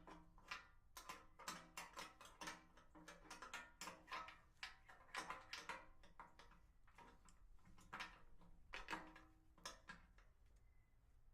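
Faint, irregular metallic clicks and clinks, a few a second, of hand tools and bolted hook hardware being handled; they thin out near the end.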